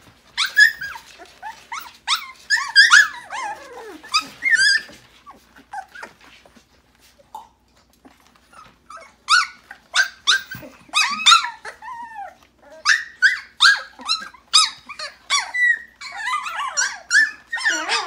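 Two-and-a-half-week-old Siberian husky puppies squealing and yipping in many short, high-pitched cries. The cries come in clusters, thin out between about five and nine seconds in, then crowd together again to the end.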